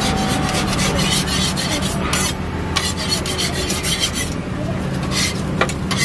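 Metal spatula scraping across a flat round crepe griddle in runs of quick rasping strokes, pausing briefly about two seconds in, with a few short scrapes near the end. A steady low hum runs underneath.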